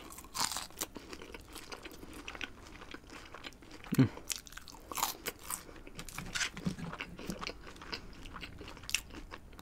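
Close-miked eating: a bite into a piece of crispy breaded fried food, then chewing with many small sharp crunches. A short hum from the eater comes about four seconds in.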